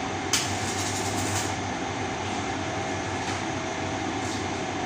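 Steady mechanical running noise with a low hum from workshop machinery or ventilation. A single sharp click comes about a third of a second in, followed by a few lighter ticks.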